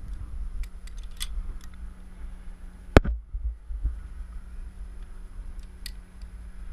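Climbing gear clicking and clinking, a quickdraw's carabiner being handled and clipped, with one much louder sharp snap about three seconds in. A low rumble runs underneath.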